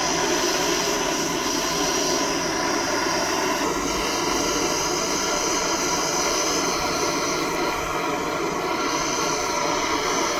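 Handheld gas blowtorch burning with a steady hiss as it heats soldered copper pipe joints until the solder melts.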